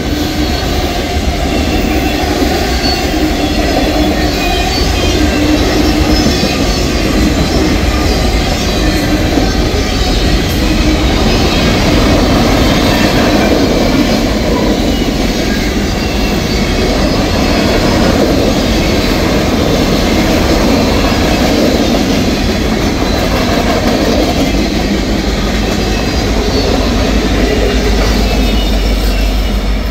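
Freight cars rolling past at a grade crossing: a steady rumble and clatter of steel wheels on rail. The train's rear distributed-power diesel locomotive is passing near the end.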